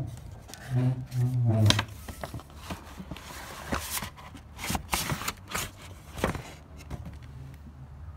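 Paper gift bag rustling and crinkling in quick, uneven scrapes as it is handled and a box is taken out of it.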